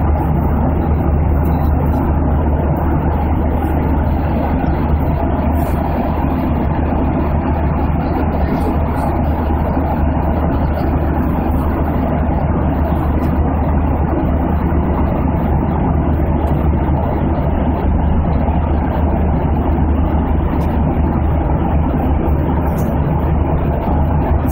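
Steady in-flight cabin noise of an aeroplane: a constant low rush of engines and airflow that does not change.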